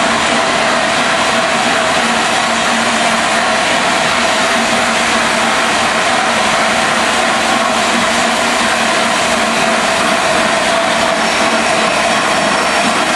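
LNER A4 Pacific steam locomotive drawing slowly into the platform: a steady, loud hiss with a constant hum under it.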